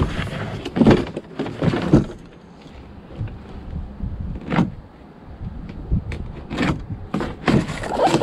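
Cardboard shipping box being handled and slid about: cardboard scraping and rustling against cardboard and the floor, with several knocks. The knocks are loudest about one and two seconds in and again near the end.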